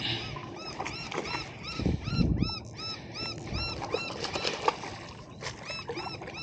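Repeated high-pitched animal calls, about three a second, each rising and then falling in pitch, with a low rushing noise about two seconds in.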